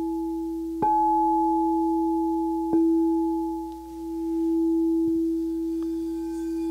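Solar plexus chakra singing bowl struck twice, about a second in and again near three seconds in. Each strike renews one steady ringing tone with a fainter higher overtone, which wavers slightly in loudness around four seconds in.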